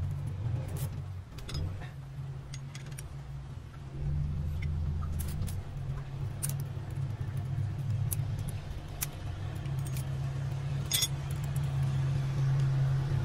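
6D16 six-cylinder diesel engine idling steadily, a little louder from about four seconds in, with scattered sharp metallic clinks.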